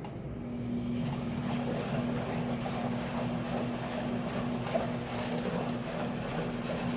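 KMC washing machine running: a steady motor hum with a rushing noise over it, growing a little louder about a second in.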